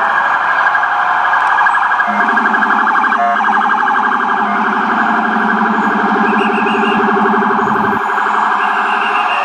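Ambulance electronic siren sounding a fast-pulsing yelp. About two seconds in, a deep low-pitched Rumbler tone joins it and cuts off suddenly about eight seconds in.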